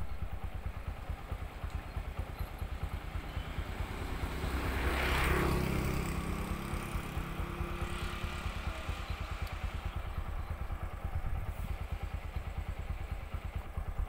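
An engine runs steadily with a rapid low throb. Around five seconds in, a louder vehicle sound swells and fades, like something passing by.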